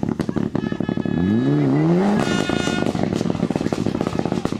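Mitsubishi Lancer Evolution IX rally car's turbocharged four-cylinder engine revving up and down hard, with rapid crackling and a brief high squeal about two seconds in.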